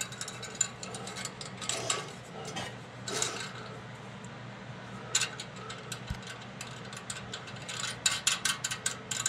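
Stainless band clamps clinking and scraping against a steel exhaust pipe as they are worked into place by hand. Scattered metallic clicks, with a quick run of rattling clicks near the end.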